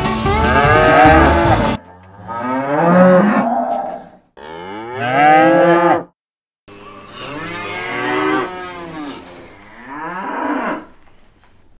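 A chorus of cows mooing: a string of long, drawn-out moos, one after another and some overlapping. Background music runs under the first moo and cuts off about two seconds in.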